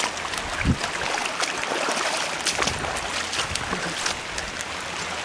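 Flood-swollen pond water spilling over its overflow, a steady rushing and splashing, with a brief low thump less than a second in.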